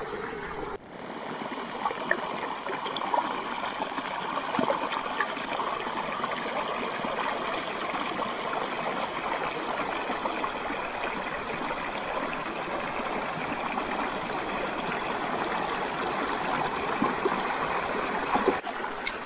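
Shallow stream running over rocks and stones, a steady rush and trickle of water.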